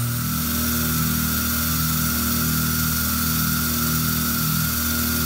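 EMCO F1 CNC milling machine running and milling a metal LED heat sink: a steady motor whine over a hiss, with tones that switch on and off every half second or so as the axes move.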